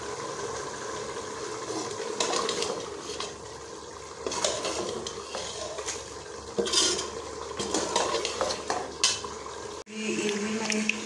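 Steel ladle stirring and scraping against the side of a pressure cooker pot, clinking now and then, while the meat curry fries in its masala with a light sizzle.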